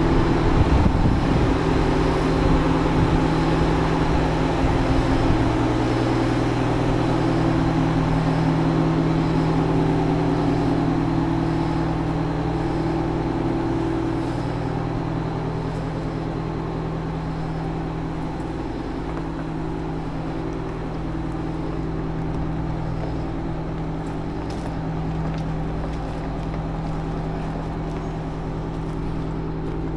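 Diesel engine of an Oshkosh HET 8x8 heavy wrecker running steadily at low speed as the truck pulls slowly forward, gradually getting quieter.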